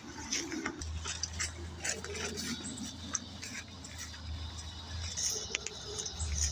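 Footsteps through grass and dry leaf litter on a trail, with irregular rustling and small clicks as plants brush past.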